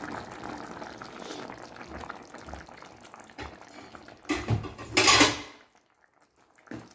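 Pumpkin-and-coconut-milk stew (ginataang kalabasa) bubbling in a steel stockpot, the bubbling fading as it comes off the boil with the burner just turned off. About four seconds in come two louder clattering knocks of kitchenware, then the sound cuts off suddenly.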